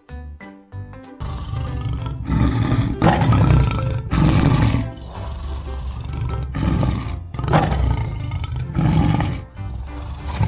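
Tiger roaring and growling in a run of about five or six loud roars, starting about a second in.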